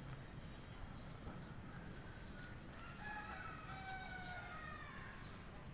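A rooster crowing once, a single drawn-out crow starting about three seconds in and lasting about two seconds.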